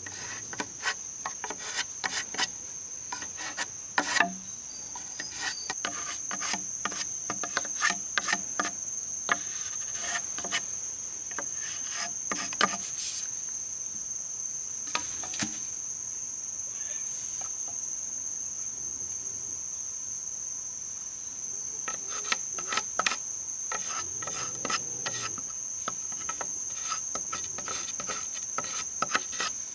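A steady, high-pitched insect call, like crickets, runs through. Over it come irregular sharp knocks, taps and scrapes of bamboo being worked by hand with a knife, with a pause in the middle.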